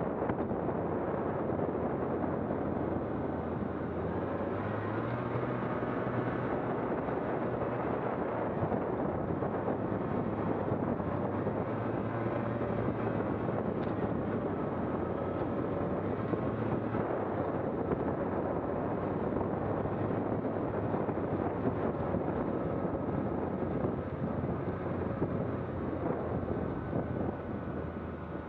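A motor vehicle on the move: a steady low engine note that rises and falls in pitch a few times as the speed changes, under a constant rush of wind noise on the microphone.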